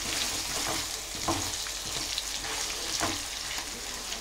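Brinjal pieces and onion sizzling in hot oil in a metal kadai while being stirred with a wooden spatula, which knocks against the pan a few times.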